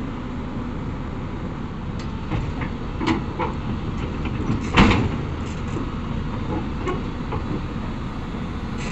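Hyundai 220L crawler excavator's diesel engine running steadily as it drives its steel tracks up onto a lowbed trailer, with a series of metal clanks and knocks, the loudest about five seconds in.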